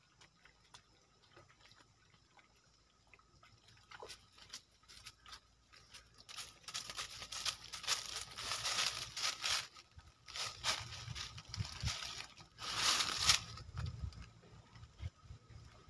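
Rustling and crackling close to the microphone, in three bursts from about six seconds in, with faint ticks before that.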